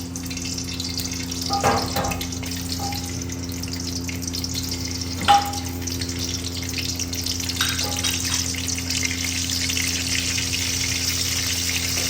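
Hot oil sizzling steadily in a karahi with garam masala spices frying in it, with three short knocks spread through it.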